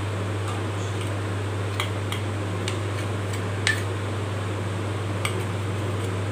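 A metal spoon clinking and scraping against a steel idli plate as steamed idiyappam is loosened off it: a handful of sharp clicks, the loudest just before four seconds in, over a steady fan hum.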